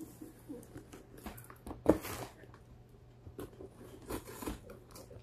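Cardboard shipping box being handled and its packing tape picked and scraped at: scattered light rustles, scrapes and taps, with a sharper knock about two seconds in.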